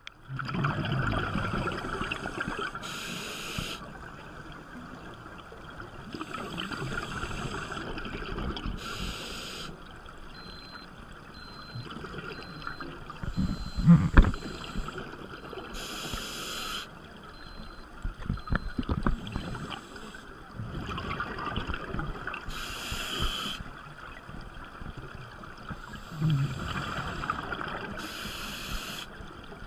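Scuba diver breathing through a regulator underwater: a short hiss on each inhale and a burst of bubbling gurgle on each exhale, about five breaths, one every six seconds or so. A single sharp knock comes about halfway through.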